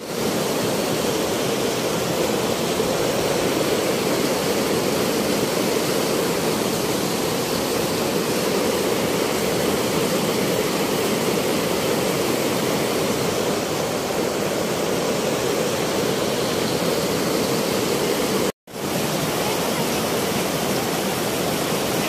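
The Swat River's fast, heavy flow rushing over rocks in whitewater rapids, a steady rush of water. The sound cuts out for a moment about three-quarters of the way through, then returns.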